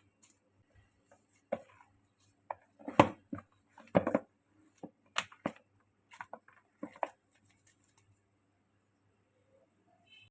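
Kitchen work at the counter: irregular knocks and taps of a knife or utensils on a board or dishes, the loudest about three and four seconds in, stopping after about seven seconds. A faint steady low hum runs beneath.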